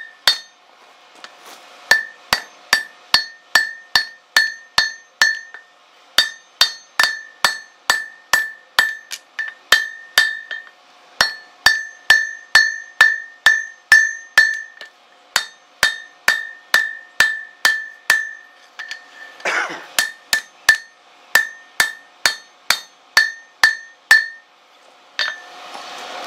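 Hand hammer striking a red-hot strip of horseshoe rasp on an anvil, about three blows a second in runs with short pauses, each blow followed by a bright ring from the anvil. The steel is being drawn to an even thickness for the lap that will form a tomahawk's eye. There is a brief noisier clatter about two-thirds of the way through.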